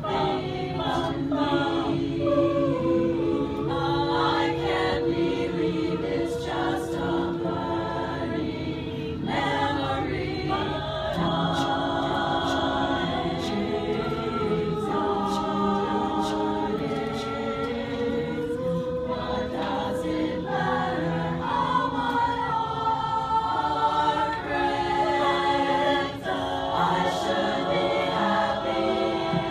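Women's choir singing a cappella, several voices held together in sustained sung notes.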